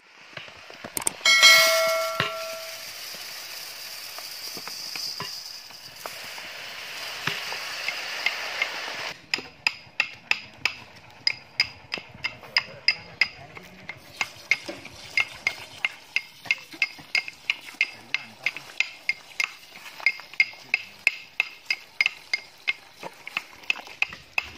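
A wood fire burning, with a steady hiss and scattered crackles, for the first nine seconds or so. After that, water glugging out of a large plastic water jar as it is poured onto rice in a steel bowl, in an even rhythm of about three glugs a second.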